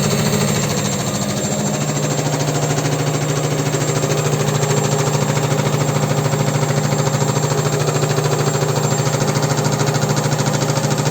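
Hansa Aquaspray 800 washing machine on its spin cycle: a steady motor hum with fast, even rhythmic knocking from the drum. The knocking is typical of the concrete counterweight working loose. The motor's pitch shifts about a second and a half in, then holds steady.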